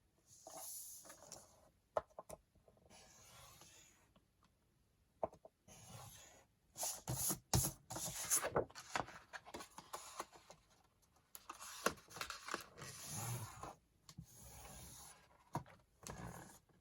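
Sheets of paper being handled and shuffled: irregular rustles and swishes as pages slide against one another, with a few sharp taps, busiest around the middle.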